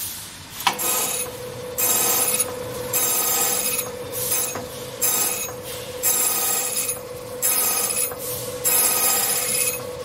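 CNC key-milling machine cutting key blanks: a click under a second in, then a steady hum from the spindle with shrill, ringing cutting bursts about once a second as the cutter works the keys.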